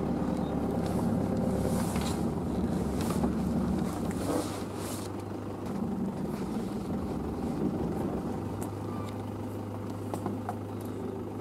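Pickup truck's engine running as it drives slowly along a rough dirt track, with clatters and knocks from the vehicle over the first few seconds.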